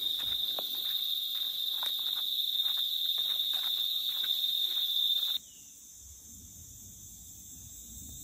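Steady high-pitched drone of insects, with irregular footsteps on a rough dirt road underneath. About five seconds in it cuts off abruptly to a quieter hiss with a fainter, higher insect drone.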